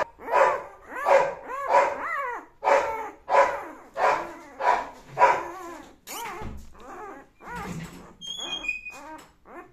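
Eight-day-old Doberman puppies crying: a quick run of high-pitched, falling whines and yelps, about two a second, loudest over the first five seconds, then softer calls. These are the hungry cries of newborn puppies at feeding time.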